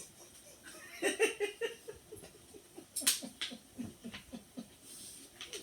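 People laughing in short, choppy bursts, with a sharp click about three seconds in.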